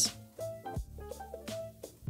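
Background music: a soft melody of held notes stepping from one pitch to the next.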